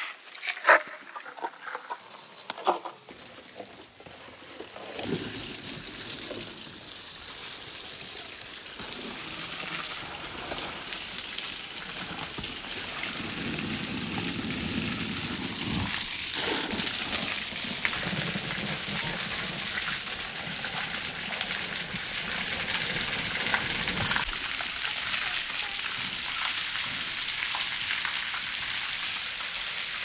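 Garden hose pipe spraying a strong jet of water onto a concrete courtyard floor and plants: a steady hissing splatter that builds up after the first few seconds. A few sharp clicks come in the first three seconds.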